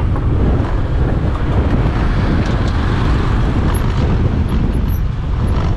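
Wind buffeting the microphone over steady vehicle and road noise while riding along a road.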